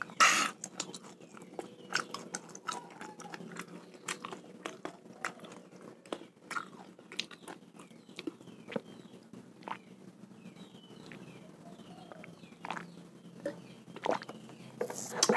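Close-miked mouth sounds after eating raw snakehead fish: many short wet lip smacks and tongue clicks, with a sharp breath out right at the start and sips from a glass of water partway through.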